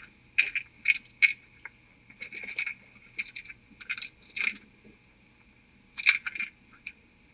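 Kittens scuffling and rolling on bedding: a series of short, sharp scratchy clicks and rustles in clusters, several in the first second and a half, again around four seconds in and around six seconds in.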